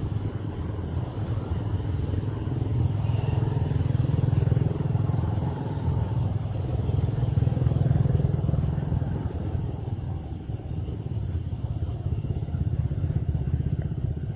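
Motorcycle engine running nearby as a low rumble, swelling louder around the middle and easing off toward the end.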